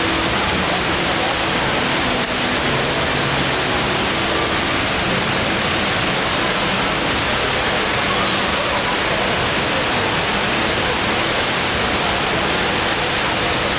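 Water from the HSBC Rain Vortex indoor waterfall pouring down in a loud, steady rush.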